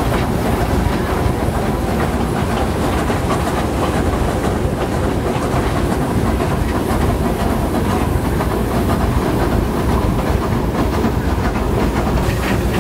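Steam train running along the track, heard from an open-sided passenger carriage behind the locomotive: a steady, even running noise of wheels and cars on the rails.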